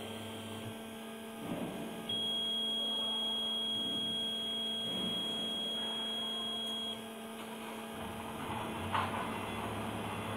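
CNC hot-wire foam cutting machine running: a steady electrical hum, with a high steady whine that switches on about two seconds in and cuts off about five seconds later.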